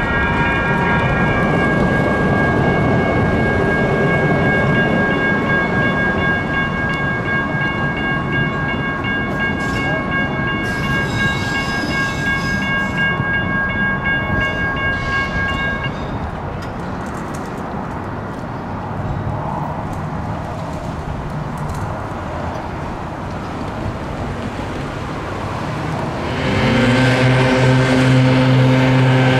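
Sacramento RT light rail train on the move, with a steady whine of several high tones over a rumble that fades out about halfway through. Near the end a loud, low horn chord starts suddenly and is held.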